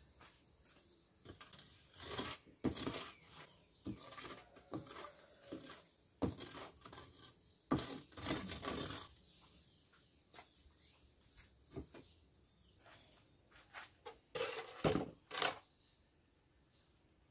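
A long-handled tool scraping and knocking along the floor of a small brick-and-clay oven, as an irregular run of scrapes, with a last cluster near the end.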